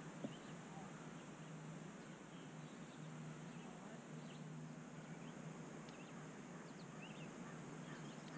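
Quiet open-air ambience: a steady faint background hiss with scattered faint, short bird chirps.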